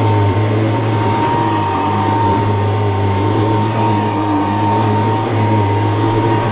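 Hoover Decade 80 upright vacuum cleaner with a 6-amp motor running steadily: a motor hum with a steady high tone over it. The odd noise comes from the belt, a Eureka RD belt that is not the right one for this vacuum and is burning a little.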